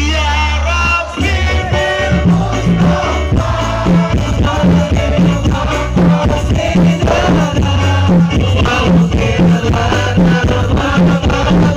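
Music with a steady beat and melodic instruments, played loud over a stage sound system.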